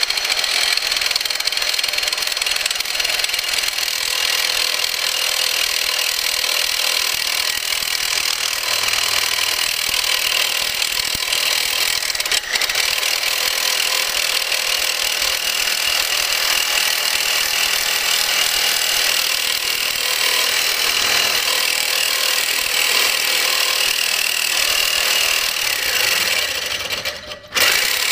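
Reciprocating saw with a Diablo carbide-tooth blade cutting a hardened steel file: a steady, high-pitched grinding rasp of the blade stroking through the steel. It cuts out briefly near the end and starts again.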